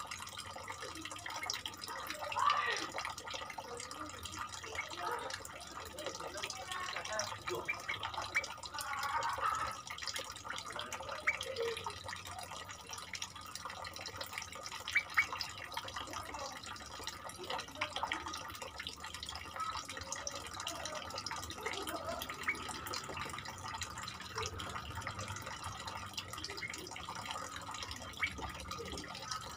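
Yellow-vented bulbuls calling in short, bubbly, liquid phrases, strongest about two seconds in and again between seven and ten seconds in, with scattered faint chirps and ticks.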